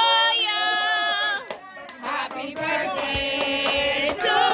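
A group of people singing together, with some hand clapping.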